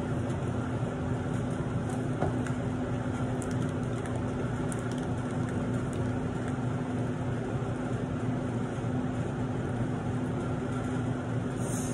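Steady mechanical hum from a running machine, with one constant low tone and a few faint clicks.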